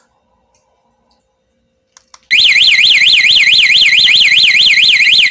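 Non-talking motorcycle anti-theft alarm siren, set off from its remote during a function test. About two seconds in, a loud electronic wail starts, sweeping rapidly up and down at about four sweeps a second. It lasts about three seconds and stops abruptly.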